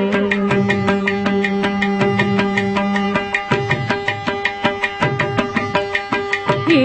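Carnatic music: a long steady held note over the drone for about three seconds, then a stretch of mridangam strokes over the drone, with the female voice coming back right at the end.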